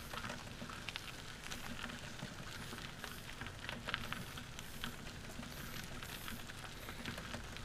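Trike tyres rolling along a woodland trail: a steady crackling patter of small ticks and grit under the wheels.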